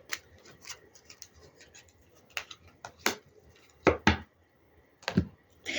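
Playing cards being handled on a table: a scattering of light clicks and taps as cards are pulled and laid down, several louder taps in the middle and near the end.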